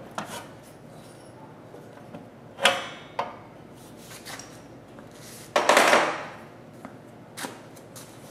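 Knocks and clanks from a fire-truck step assembly as its step casting is handled. A sharp ringing clank comes a little under three seconds in, there are a few lighter clicks, and a longer scrape lasts over half a second about six seconds in.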